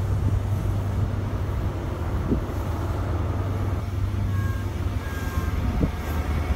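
Diesel train engine running with a steady low drone that weakens about two-thirds of the way through.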